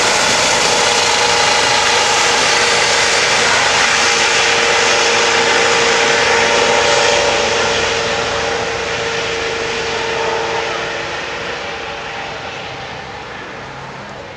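Helicopter flying away after lift-off: a steady turbine whine over the rotor noise. It stays loud for about the first half, then fades steadily as it moves off into the distance.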